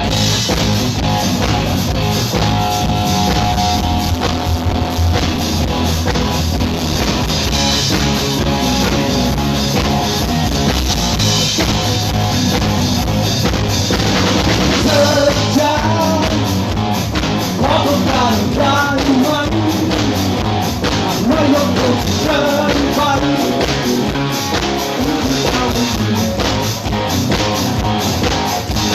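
Rock music with drums and guitar; a voice starts singing about halfway in.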